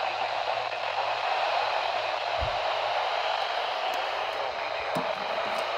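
Steady radio static: the hiss of a receiver with no clear signal coming through.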